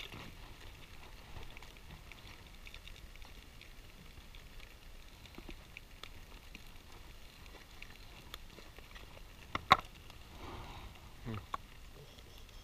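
Small campfire crackling faintly under a foil parcel of fish and hot dogs, with scattered light ticks and one sharper click a little under ten seconds in.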